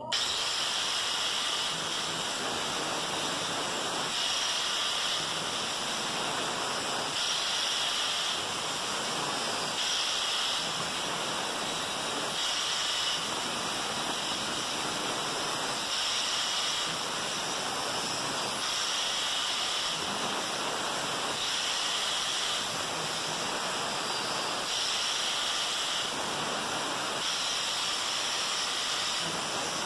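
Angle grinder with a cutting disc cutting through perforated sheet metal from a washing-machine spin drum: a steady hissing grind that grows a little brighter every two to three seconds as the disc bites.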